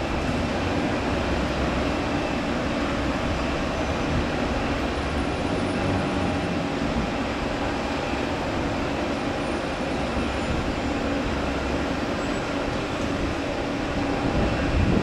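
Steady rumble of vehicles and machinery with a faint steady engine hum, unbroken by any knocks or other sudden sounds.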